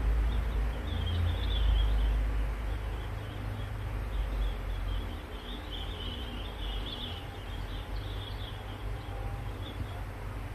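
Outdoor ambience: a steady low rumble, louder in the first two seconds, with faint high-pitched bird chirps scattered through the middle.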